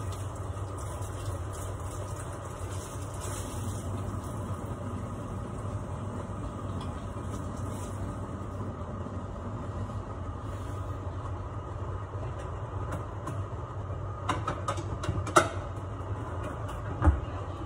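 Kitchen range hood exhaust fan running with a steady hum. A few sharp clicks and two louder knocks come near the end.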